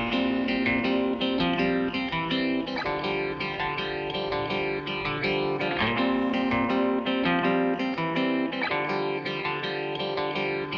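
Background music led by a plucked guitar melody, with clear notes changing every fraction of a second.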